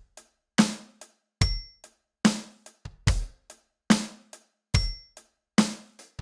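Roland TD-27KV electronic drum kit playing a steady repeating groove. Strong hits with a deep bass drum and a bright cymbal wash land a little more than once a second, with lighter strokes in between. The drum figures are played on the drums by one hand while the other fills the gaps on the hi-hat.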